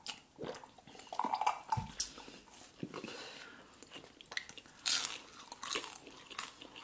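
Close-miked eating sounds: chewing and wet mouth smacks, with scattered small clicks as fingers pick food from the platter, and a louder burst about five seconds in.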